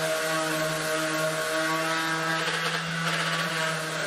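Electric orbital sander running at a steady pitch as it sands the cut edge of a birch butcher-block tabletop, rounding it to a soft bevel.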